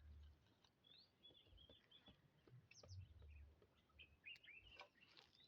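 Faint bird chirps: short rising and falling notes scattered throughout, with a cluster about four seconds in, over a low rumble.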